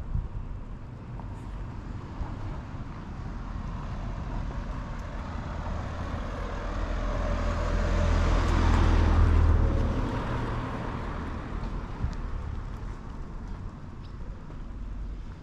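A motor vehicle passes by on a nearby road: its engine and tyre noise swell to a peak about eight to ten seconds in, then fade away.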